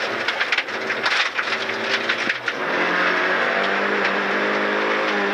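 Rally car's engine under hard acceleration on a gravel road, heard from inside the cabin, with loose gravel rattling against the underside. About two seconds in the engine note drops briefly, then climbs steadily as the car gathers speed.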